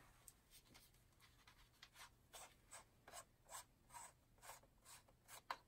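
Faint scraping rasps from the removable capsule head of a JTS RU-850LTH handheld wireless microphone being unscrewed from the handle, the threads rubbing in a series of short strokes, about two to three a second, starting about two seconds in.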